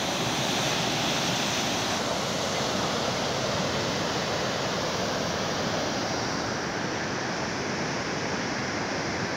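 Floodwater rushing through the partly built overflow section of a dam: a loud, steady, even rush of turbulent water.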